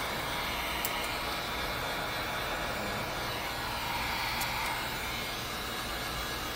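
Handheld heat gun blowing steadily, a constant rushing of fan and hot air, as it is played over window tint film to heat-shrink it.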